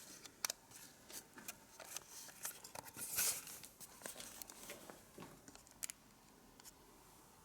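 Handling noise from camera gear: scattered light clicks and rustles, with a brief louder rustle about three seconds in.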